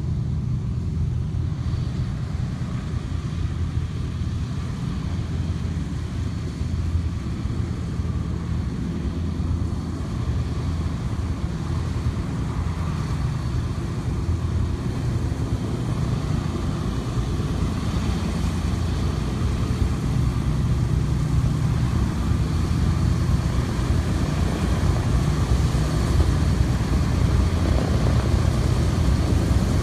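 Vintage twin-engine propeller aircraft taxiing with its piston engines running steadily at low power, growing slowly louder as it comes closer.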